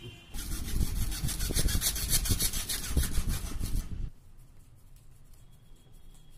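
Hacksaw cutting through a PVC water pipe with rapid back-and-forth rasping strokes, stopping abruptly about four seconds in.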